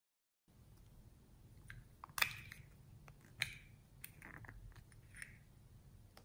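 Small plastic cosmetic containers (lipstick and lip-gloss tubes) being handled, with a few short, sharp plastic clicks as caps are twisted and pulled off, the loudest about two and three and a half seconds in. The sounds are faint.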